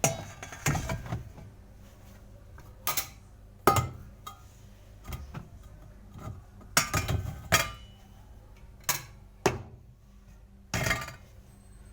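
Dishes and glassware clinking and knocking together as they are handled and set down, in a dozen or so scattered sharp knocks.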